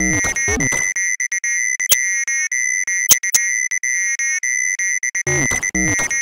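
Commodore 64 SID chip music: a bass-and-drum beat under a high held note. About a second in, the bass and drums drop out, leaving the high note pulsing on its own with a few sharp clicks. The beat comes back about a second before the end.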